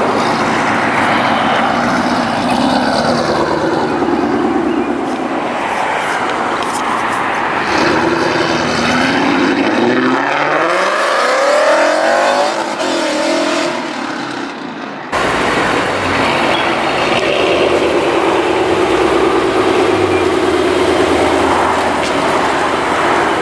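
Car engine running and revving, its pitch rising and falling repeatedly, with an abrupt break about fifteen seconds in before it carries on.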